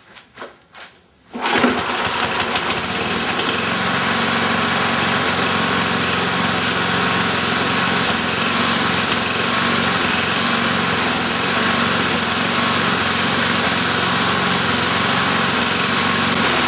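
Tecumseh single-cylinder four-stroke lawn mower engine being cold-started: a few short rattles of the recoil pull-start, then it catches about a second and a half in and runs loud and steady. The owner notes it hunted on this startup, which it does only when it is really cold.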